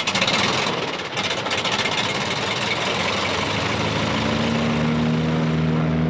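Airboat's engine and air propeller running as the boat moves across shallow water: a loud, steady roar that starts suddenly, with a low steady hum coming in about four seconds in.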